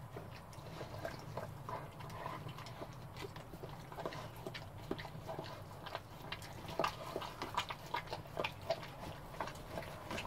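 Mother dog licking and mouthing a newborn puppy during whelping, cleaning the birth membrane off it. Quick, irregular wet smacking and clicking sounds, more frequent in the second half.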